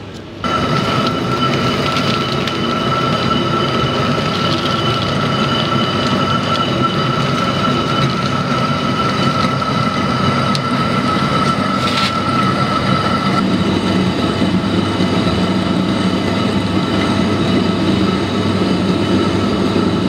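Motor-driven millstone grinding rock salt: a steady mechanical grinding rumble with a constant high whine on top, which drops out about two-thirds of the way through.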